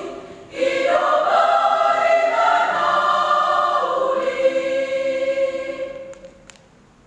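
Church choir singing in harmony, breaking briefly about half a second in, then holding long chords that fade away about six seconds in, as at the close of a piece.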